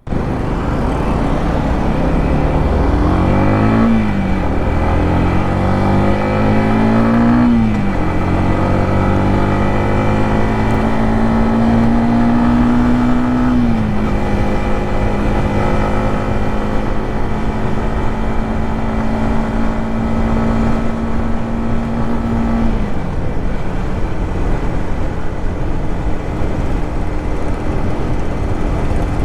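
Yamaha MT-15's 155 cc single-cylinder engine and exhaust pulling through the gears: the revs climb and drop back at three upshifts, about 4, 8 and 14 seconds in. It then holds a steady cruising note and eases off to a lower pitch a few seconds before the end.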